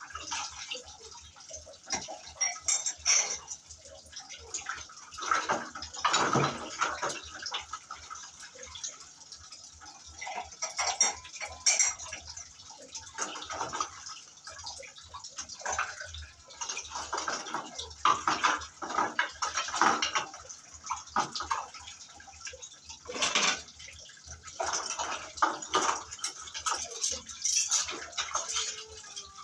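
Dishes and metal cutlery being washed by hand in a plastic basin of water: irregular sloshing and splashing, with clinks of utensils knocking together.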